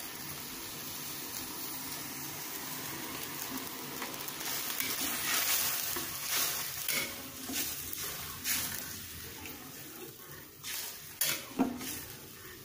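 Soy-sauce broth heating in a pan as it comes to the boil: a steady hiss and bubbling. From about four seconds in there are scattered short scrapes and clicks, like a spatula stirring the pan.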